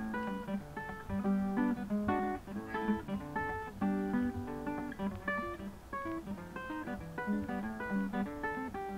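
Background music: acoustic guitar picking a light, busy melody of quick plucked notes.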